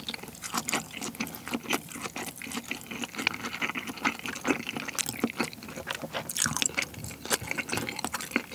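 Close-miked chewing of salmon nigiri: a dense, irregular run of soft wet clicks and squelches as the thick, chewy salmon is worked in the mouth.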